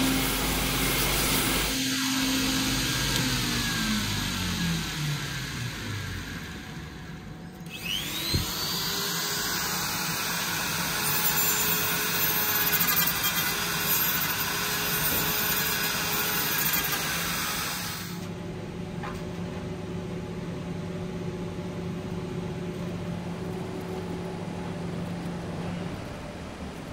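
An electric power tool winding down with a falling whine, then starting up again about eight seconds in with a rising whine. It runs high-pitched for about ten seconds and then cuts off, leaving a lower steady hum.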